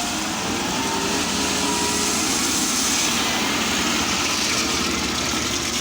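A heavy vehicle's engine running steadily, with a wavering whine over it.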